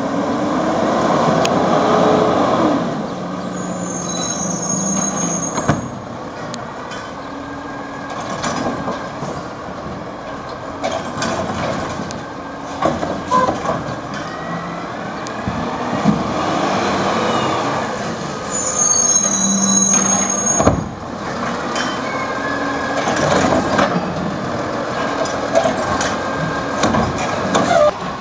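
2011 Peterbilt 320 side-loading garbage truck with a Wayne Curbtender body, its diesel engine revving and dropping as it pulls from cart to cart. Air brakes hiss and the brakes squeal at each stop, with sharp knocks in between, in two similar rounds.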